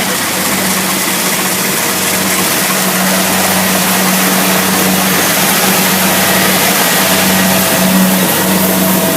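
Kubota DC70 Plus rice combine harvester running steadily under load, its diesel engine humming beneath a dense wash of machinery noise.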